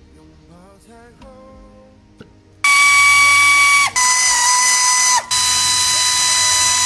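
A power tool's motor whining at high speed in three runs, starting about a third of the way in. Its pitch drops each time the trigger is let off.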